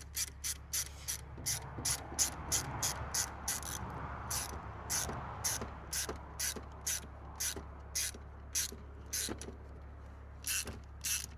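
Hand socket ratchet clicking steadily, about three clicks a second, as it tightens a fastener on a plastic air intake part.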